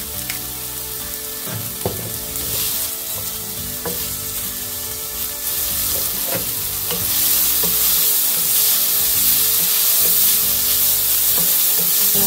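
Diced bell pepper, jalapeño and onion sizzling in olive oil over medium heat as they soften. The sizzle grows louder about seven seconds in, with a few light knocks.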